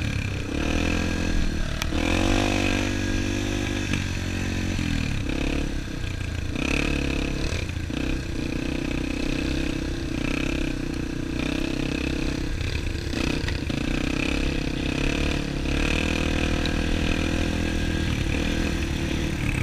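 Dirt bike engine running at riding speed, rising and falling in pitch with the throttle over the first few seconds, then running more steadily, with occasional knocks and rattles.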